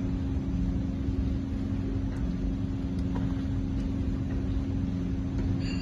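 Steady low background hum with a constant tone under an even hiss, with a few faint ticks.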